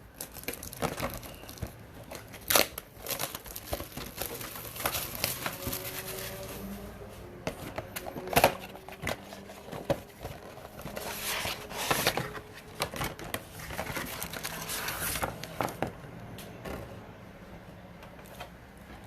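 Foil wrappers of Panini Optic basketball card packs crinkling and rustling as they are handled and shuffled, with irregular crackles and sharper clicks.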